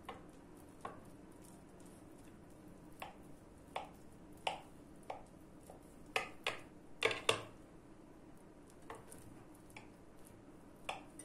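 Kitchen knife cutting through syrup-soaked semolina cake in a glass baking dish, the blade knocking against the glass in about a dozen scattered sharp taps, the loudest pair about seven seconds in.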